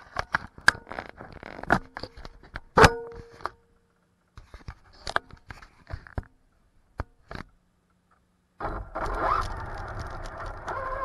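Clicks and knocks of hands handling a camera mounted on a Traxxas Slash RC truck. About eight and a half seconds in, the truck starts driving: a steady motor and tyre noise with whines that rise and fall in pitch.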